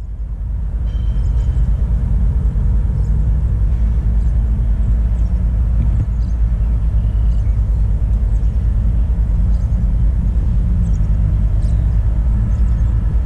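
Steady low rumble of an approaching diesel-hauled train still some distance off, with wind buffeting the microphone. A few faint high chirps sound above it.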